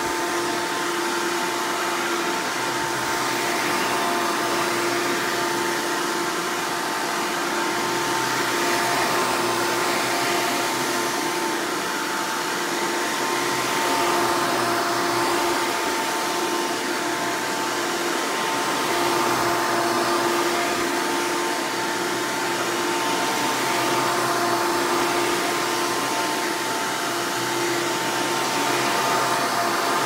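Hoover Elite-style upright vacuum cleaner running on carpet: a steady motor whine over rushing airflow, swelling and easing slightly every few seconds as it is pushed back and forth.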